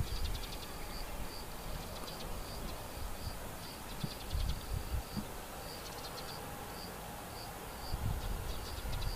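An insect chirping in short, high, evenly spaced pulses about two a second, with a few quick runs of ticking, over a low rumble.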